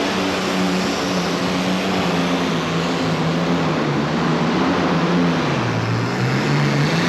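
Modified pulling tractor's Allison V12 aircraft engine running hard under load down the track. Its pitch wavers, sags about five and a half seconds in, then climbs again.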